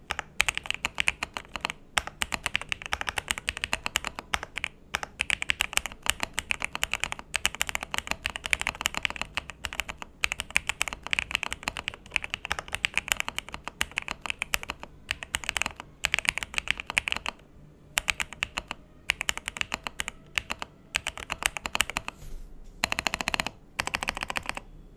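Clacky typing on an Akko ACR Top 40 mechanical keyboard with Akko CS Pro Silver switches and clone GMK Botanical Hiragana keycaps. Fast runs of keystrokes are broken by short pauses, and a denser burst with a deeper sound comes near the end.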